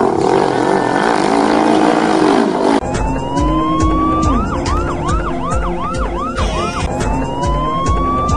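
A loud, dense noisy rush for about the first three seconds, then a police siren sound effect. The siren rises slowly in a wail and breaks into a fast yelp of about three sweeps a second, and this happens twice, over low thumps.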